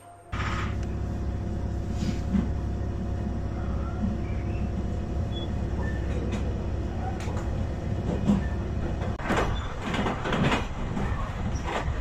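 Running noise of a commuter train heard from inside the car: a steady low rumble of wheels on rail that starts suddenly just after the beginning. Sharp clacks from the wheels crossing the track come through, with a quick run of them about nine seconds in.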